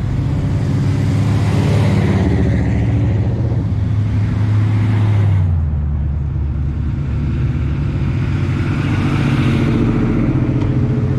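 Engines of classic Chevrolet C10 pickup trucks rumbling as they roll slowly past one after another. One truck's engine is loudest early and fades about five and a half seconds in, and the next one builds near the end.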